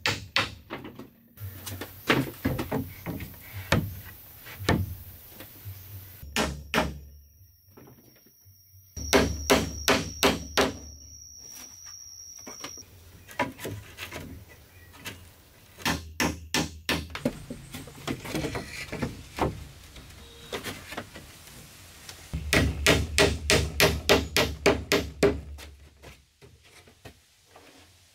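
Hammer driving nails into wooden planks, in runs of quick, sharp blows with short pauses between; the heaviest runs come about nine seconds in and again near the end.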